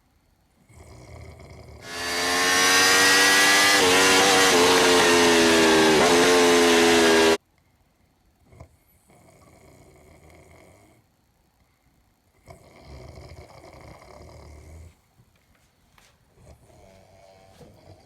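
A man snoring. About two seconds in comes one long, very loud droning snore, held on a steady pitch that sags slightly, which stops abruptly after about five seconds. Three softer snoring breaths follow.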